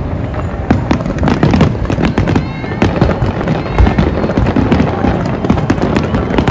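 Large fireworks display: rapid, overlapping bangs and crackles over a continuous low rumble.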